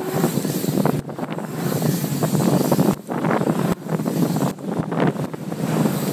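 Strong wind buffeting a helmet-mounted camera's microphone while riding a bike, cutting out for a moment several times.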